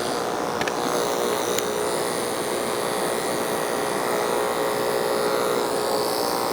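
Electric dog grooming clippers running with a steady buzz as they cut through the dog's coat, with two faint clicks, about half a second and a second and a half in.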